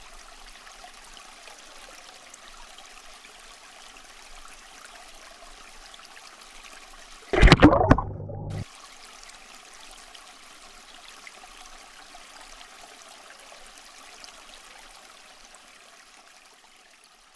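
Steady trickling of water in an aquarium, typical of the tank's filter returning water. Just past the middle, a sudden loud sound lasts about a second, and the water sound fades out at the end.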